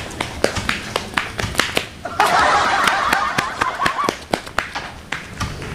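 Quick running footsteps slapping on a paved road, a few steps a second. About two seconds in, a dense rush of noise comes in for about two seconds.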